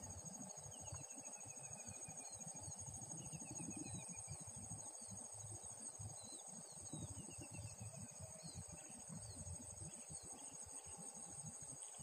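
Insects, crickets or similar, chirring steadily at a high pitch, with a bird repeating short descending trills several times. Uneven low rumbling of wind on the microphone runs underneath.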